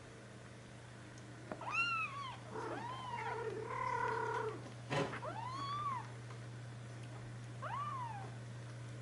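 Four-week-old Birman kittens mewing: about six high, short mews that rise and fall in pitch, with one longer, steadier call in the middle. A sharp click comes about five seconds in.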